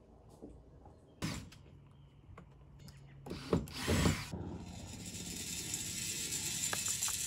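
Cordless drill running in short, irregular bursts at the edge of the ambulance's metal box body, with knocks and clatter from the metalwork.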